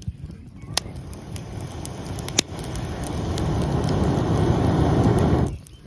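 Campfire crackling, with a few sharp pops and a rushing noise that swells louder and then cuts off suddenly near the end.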